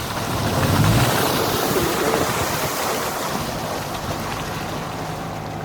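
2008 Subaru Impreza WRX driving over a slushy dirt road: tyre noise and slush and water hissing against the car. It is loudest about a second in, with a low rumble, then slowly eases off.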